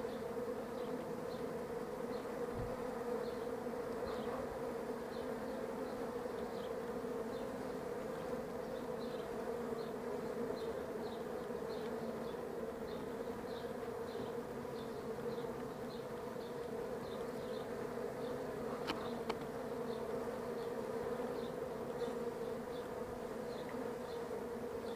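Honeybees buzzing steadily at an observation hive's entrance: the even, continuous hum of many bees at once.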